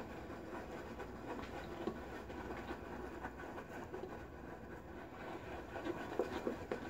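Badger-hair shaving brush stirring Williams mug soap lather in a small plastic bowl: a faint, steady wet swishing with fine crackling as the lather is still being worked up.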